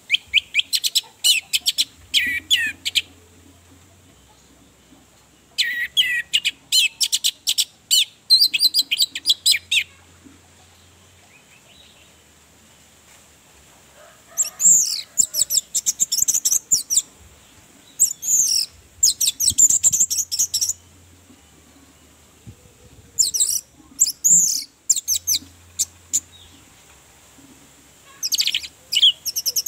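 Orange-headed thrush singing in about six bursts of rapid, high, varied notes, each burst lasting one to four seconds, with pauses of a few seconds between them.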